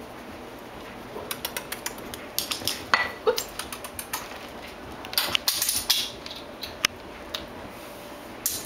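Metal beer bottle cap clinking and skittering across the floor in several bursts of small clicks as a kitten bats and chases it.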